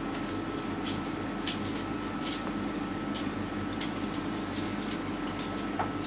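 Short, dry scrapes of a painting tool laying thick oil paint onto a stretched canvas, a few strokes a second, over a steady low room hum.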